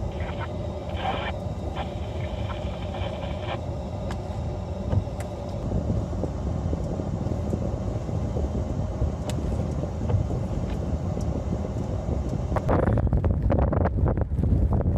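A steady low outdoor rumble. About three-quarters of the way through it becomes louder and gusty as wind buffets the microphone.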